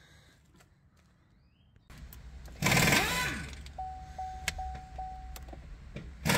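Opel Insignia 1.6 CDTI diesel engine being started after a fuel filter change: a loud burst about two and a half seconds in as it catches, dropping in pitch as it settles to a low steady run. A dashboard chime beeps about four times after.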